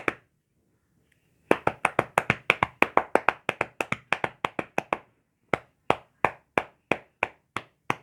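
Hand percussion on a bedridden patient's back to loosen phlegm. After a short pause comes a fast run of sharp slaps, about seven a second, then slower single slaps about three a second.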